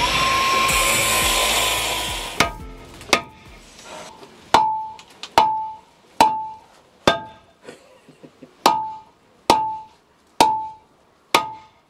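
A short run of power-tool grinding winds down, then hammer blows on the narrowboat's steel engine cradle fall steadily, about one a second, each leaving a brief metallic ring.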